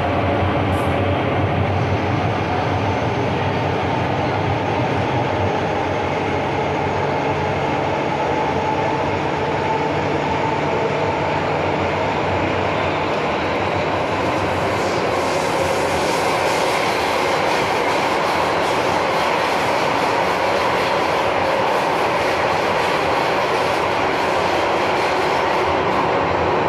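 An MTR Tsuen Wan line M-Train, a Metro-Cammell electric multiple unit, running steadily along the track: continuous wheel-on-rail and running noise with a low hum. From about halfway through, a brighter, hissier rail noise with faint ticks comes up.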